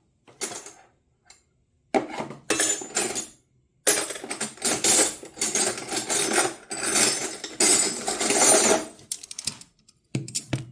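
Steel combination wrenches clinking and clattering against one another as they are handled and set onto a magnetic wrench holder: a few separate clinks, then a dense run of rattling from about four seconds in to about nine.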